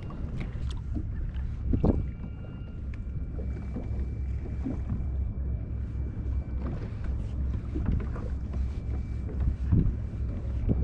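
Wind rumbling on the microphone aboard a fishing kayak, with scattered light clicks and taps and a faint steady high whine in the background.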